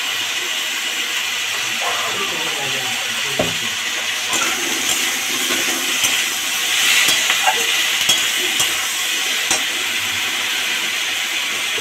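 Chopped vegetables sizzling in oil in a metal kadai while a steel spatula stirs them, with a steady hiss and scattered scrapes and knocks of the spatula against the pan.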